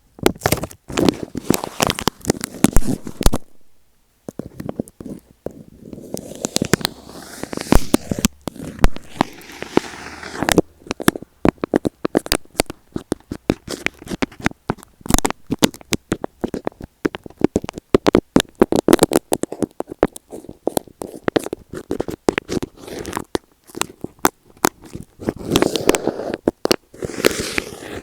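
Close-up crackling and scratching on tape stuck over an Apple EarPods microphone as it is poked and rubbed, in dense irregular clicks. There is a brief pause about four seconds in, and a softer rubbing stretch a few seconds later.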